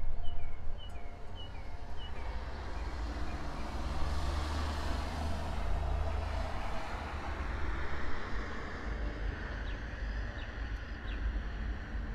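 Outdoor ambience with a constant low rumble and a vehicle going past, swelling to its loudest around the middle and fading away. A bird gives a quick series of short chirps in the first few seconds.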